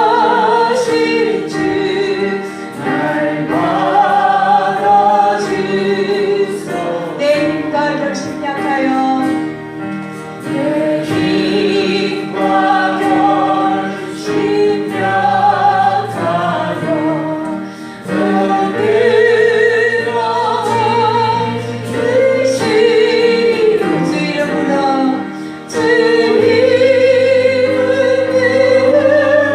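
Church worship singing: a group of voices sings a gospel hymn over steady, held instrumental notes underneath.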